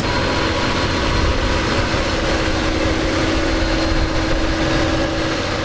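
Heavy machine's diesel engine running steadily, with a steady whine over the engine noise.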